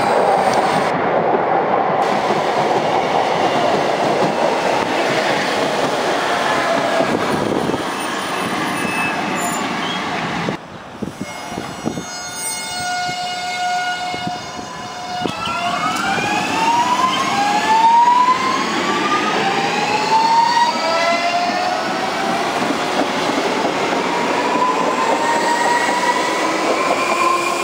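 Electric commuter train rolling along the platform with a steady rumble of wheels on rails. After a cut, an electric multiple unit pulls away, and its traction motors give a series of rising whines that climb in repeated steps as it accelerates.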